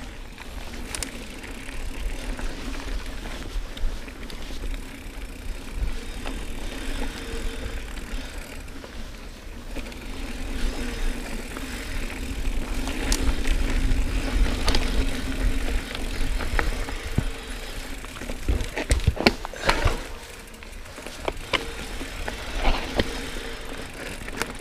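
Mountain bike riding along a dirt singletrack: a steady rumble of tyres on the trail, with a cluster of sharp knocks and rattles as the bike goes over bumps about three quarters of the way through.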